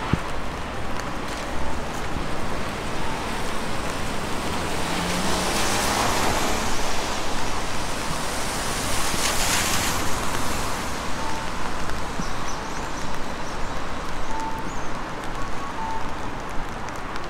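Tyre hiss of traffic on a rain-soaked road, a steady wet swish that swells for several seconds in the middle as a vehicle passes.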